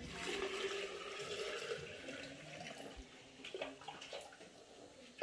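Water poured from a plastic dipper into a plastic jug for about two seconds, then a few light knocks of the dipper.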